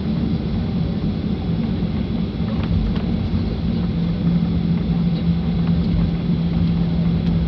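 Boeing 737-800 cabin noise while taxiing: the CFM56 engines' steady low rumble, heard inside the cabin. A steady low hum comes in about halfway through.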